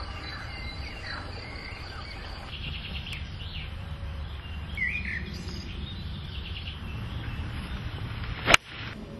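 Scattered short bird chirps over a low, steady outdoor rumble, with one sharp click near the end.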